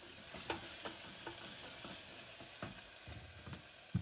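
Chopped onions sizzling gently in oil in a pan on low heat as they caramelize and turn translucent, with scattered light taps and scrapes of a utensil stirring them.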